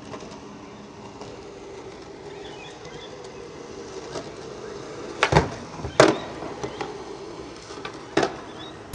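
Skateboard on a hard outdoor court: wheels rolling, then a few sharp clacks of the board hitting the ground, the loudest about six seconds in and the last near the end.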